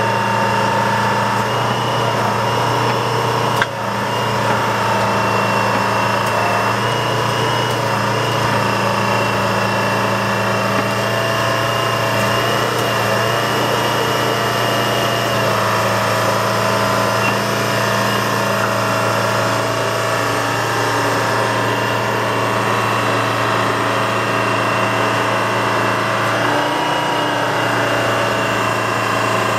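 Diesel engine of an old crawler hydraulic excavator running steadily under light working load as the machine swings and moves its boom, with a steady high whine over the engine drone. A single sharp knock about four seconds in.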